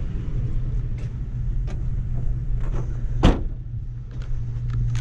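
Vehicle engine idling with a steady low hum, and one sharp knock about three seconds in.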